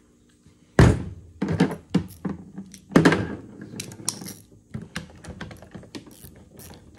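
Metallic clicks and knocks as a nut is worked onto the terminal stud of a GM starter solenoid. The loudest knock comes about a second in, followed by a run of smaller ticks.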